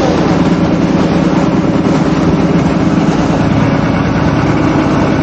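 Small passenger boat's engine running steadily under way, a constant low drone with the rush of water from the churning wake.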